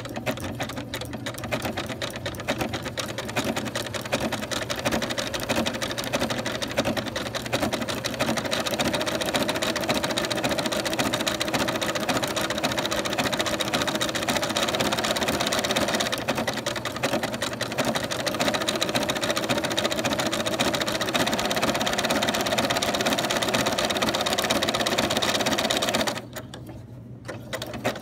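Domestic sewing machine running steadily at speed, sewing down an appliqué edge with a stitch that alternates straight stitches along the edge with bites to the left. It stops for about a second near the end, then starts stitching again.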